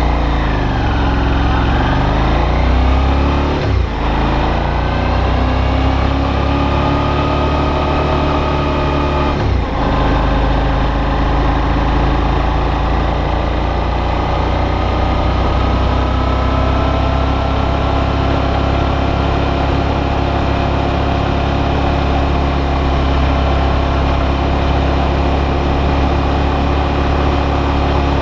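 Suzuki V-Strom 650's V-twin engine heard from a camera mounted on the bike while riding. It revs up through the gears, with brief dips at gear changes about 4 and 9 seconds in, then holds a steady cruising pitch.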